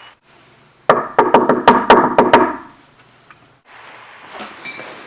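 Knocking on a wooden door: about eight quick, loud knocks that ring in the room, then faint rustling.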